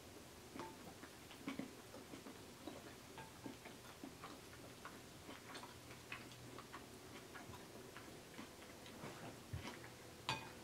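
Quiet eating sounds: chewing a mouthful of creamy pasta salad, with faint, irregular clicks of wooden chopsticks against a glass bowl and a couple of slightly louder clicks near the end.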